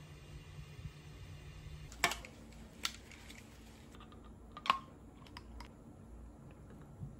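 Sharp plastic clicks and taps as the parts of a portable Omron nebulizer are handled and fitted together: three louder clicks about a second apart, then a few lighter ones. A steady low hum runs under the first two seconds.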